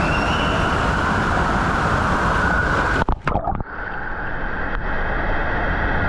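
Water rushing and churning down a water-slide channel, heard close up from a rider sliding feet first, as a steady loud rush. About three seconds in it stutters and drops out briefly in splashes, then comes back duller.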